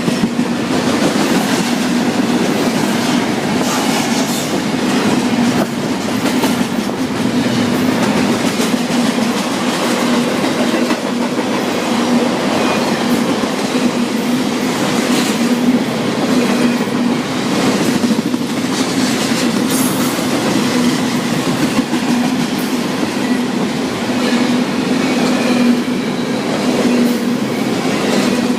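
Freight train cars rolling past at close range: a steady rumble of wheels on rail, with the wheels clicking over the rail joints at irregular moments.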